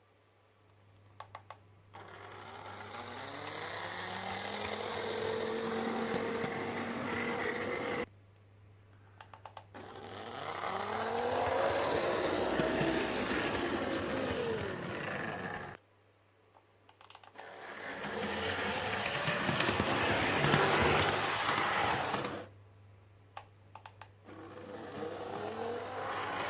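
Model electric locomotive motors whining on repeated short runs. Each run starts after a few clicks, rises in pitch as the loco speeds up and sinks again before cutting off abruptly. There are four runs, separated by short pauses.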